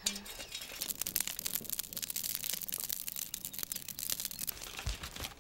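Dry plant stalks burning in a traditional wood-fired firebox, crackling with a dense run of small snaps and pops.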